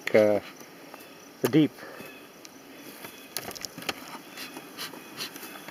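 Faint insect sounds around the beehives, with scattered soft clicks. A brief spoken word comes at the very start and another about one and a half seconds in.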